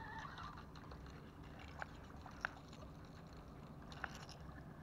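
Faint handling of a spinning rod and reel: a few small, sharp clicks over a low steady background hiss.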